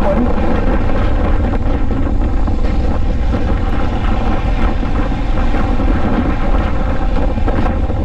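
Royal Enfield Himalayan's single-cylinder engine running steadily at cruising speed, with wind rumbling on the microphone.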